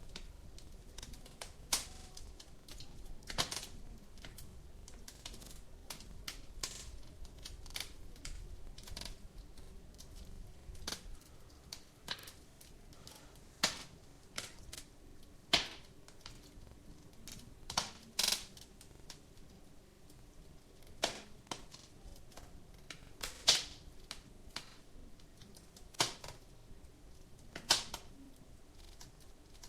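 Wood fire in a fireplace crackling, with irregular sharp pops every few seconds over a constant faint crackle.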